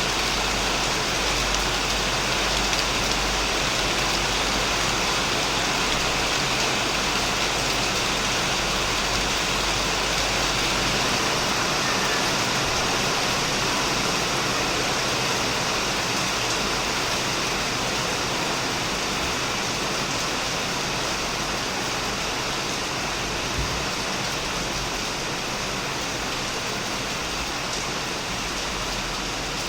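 Heavy rain falling steadily on a shed roof and on plants, a dense, even hiss that eases slightly toward the end.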